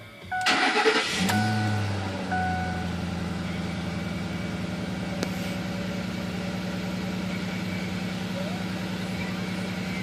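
2007 Ford F-150's 5.4-litre V8 being started: a dashboard warning chime dings a few times while the starter cranks briefly, the engine catches about a second in, flares, and settles into a steady idle by about three seconds. It idles with the ticking the owner is asking about.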